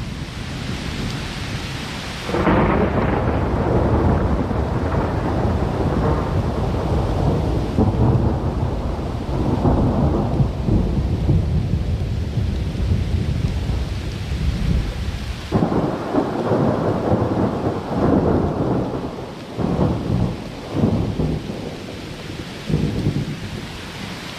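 Thunder in a thunderstorm: a sudden clap about two seconds in rolls on as a long low rumble, then a second clap a little past the middle breaks into several shorter rumbling peals. A hiss of rain runs underneath, plainest at the start before the first clap.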